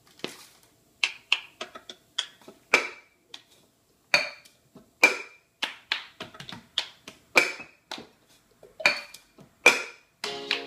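A string of sharp hand claps and slaps, uneven but about two a second: hands patting biscuit dough and clapping off flour. Music comes in near the end.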